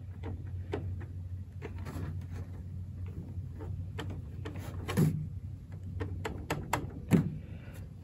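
Scattered light clicks and taps of a hand on a portable 12-volt fridge's control panel and case, a couple of them louder about five and seven seconds in, over a steady low hum. The fridge itself does not start, because a negative wire inside it is disconnected.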